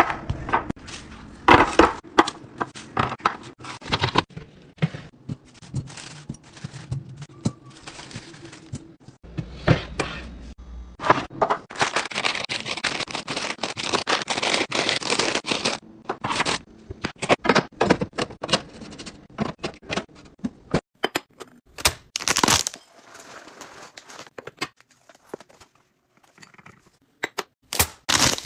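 Restocking handling sounds: food items and containers set down with many sharp taps and knocks, and a few seconds of plastic snack bags crinkling as they are stacked in the middle.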